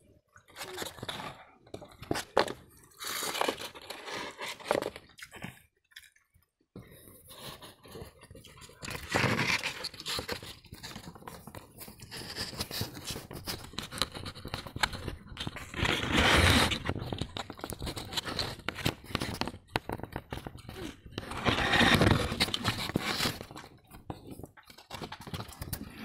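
Close eating sounds: chewing and crunching with clicks and scrapes of fingers against steel bowls, broken by several loud rubbing, knocking swells from the phone being handled against the microphone.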